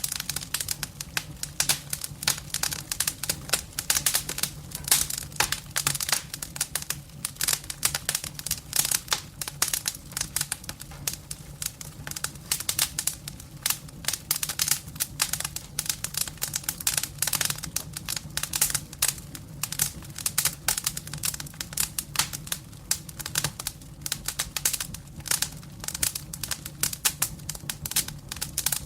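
Firewood burning in a fireplace, crackling with a dense run of quick, irregular snaps and pops, over a low steady hum.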